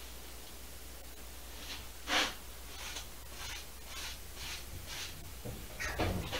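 Flat paintbrush scrubbing sap green paint onto a stretched canvas in short strokes: a dry, scratchy swish about twice a second, the loudest about two seconds in, with a brief handling sound near the end.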